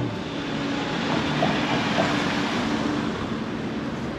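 A vehicle passing slowly on the street: a swell of traffic noise that peaks about halfway through and then fades.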